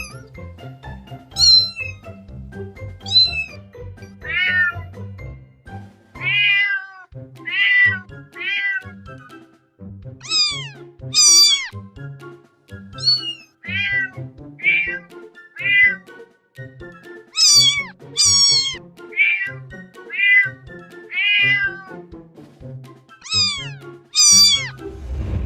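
A domestic cat meowing again and again, about one meow every second or so, some high and falling in pitch, others lower, over background music with a steady low beat.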